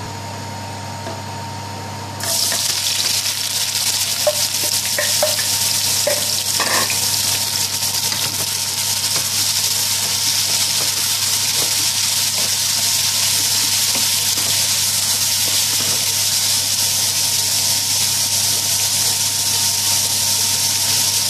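Sliced onions sizzling in hot vegetable oil in a metal wok-style pan while a wooden spoon stirs them. The sizzle starts suddenly about two seconds in, over a steady low hum, and holds steady after that. A few light knocks come in its first seconds.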